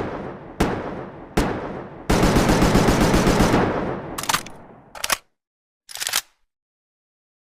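AKM assault rifle gunfire sound effect: three single shots with fading echoing tails, then a rapid full-automatic burst lasting about a second and a half, followed by three shorter bangs.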